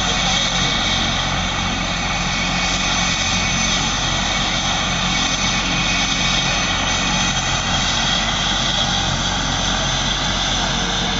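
Police helicopter running on the ground with its main rotor turning: a steady high turbine whine over the rotor noise, unchanging throughout.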